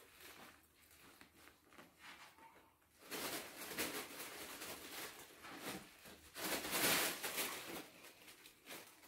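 Near silence at first, then rustling and scuffing noises from about three seconds in, loudest a little before the end.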